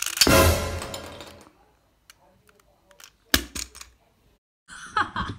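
A speed cube pops mid-solve, its pieces coming apart in a loud crash that rattles on for about a second. A little past three seconds in comes a single sharp knock as the cube is dropped.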